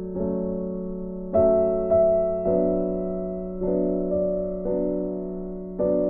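Background music: slow keyboard chords, each struck and left to fade, a new chord about every second.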